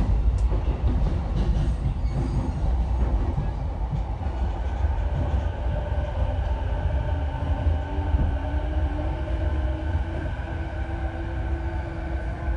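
JR E233-5000 series electric train slowing into a station, heard from inside the car: a continuous running rumble from wheels and bogies. About four seconds in, the electric motor drive's whine comes in as a set of steady tones that shift slightly in pitch.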